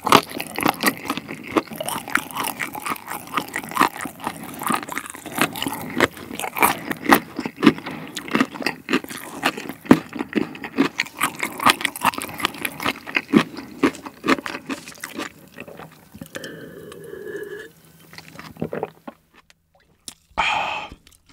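Close-miked chewing of sauced fried chicken: many small wet crunches and mouth clicks that fade after about fifteen seconds. A short hummed sound follows, then a brief vocal exclamation near the end.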